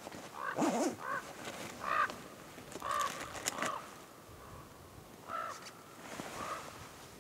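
A crow-like bird cawing: a string of about seven short, harsh calls at uneven intervals.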